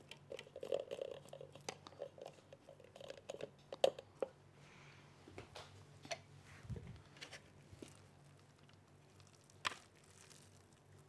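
A spatula scraping sticky minced chicken mixture off the sides of a plastic food processor bowl: soft wet scrapes and clicks, busiest in the first few seconds, with a sharp knock near the end as the bowl is tipped out.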